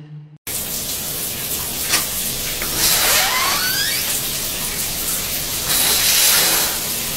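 Loud steady rushing hiss that starts suddenly about half a second in, with a short wavering squeal rising in pitch about three seconds in.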